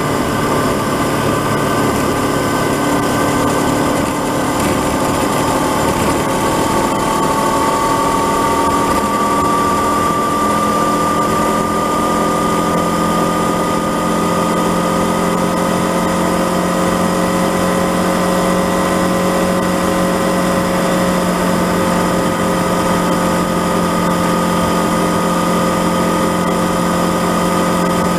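Honda CB500X's parallel-twin engine running at cruising speed while the bike is ridden, its note rising slowly over the first ten seconds or so and then holding steady, over a constant rush of wind and road noise.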